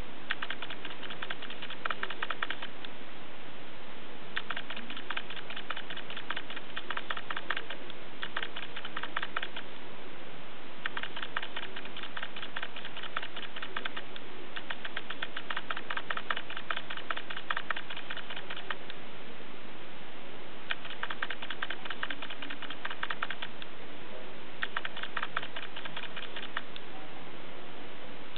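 Rapid, light clicking or tapping in runs of a few seconds, with short pauses between the runs, over a steady background hiss.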